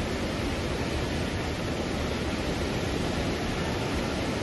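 Alaknanda river in flood: fast, muddy floodwater rushing in a steady, even roar of water noise.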